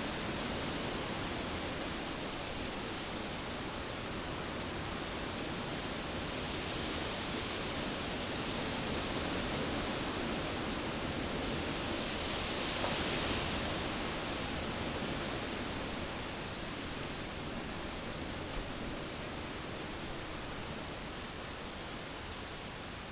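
Cyclone wind blowing hard and steadily, a gust swelling up about halfway through and then easing, the wind slowly dying down near the end.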